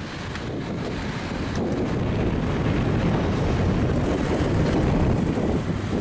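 Road traffic passing close by: a semi-trailer truck and cars driving past, with tyre and engine noise and wind buffeting the microphone. The sound fades in and grows louder over the first couple of seconds.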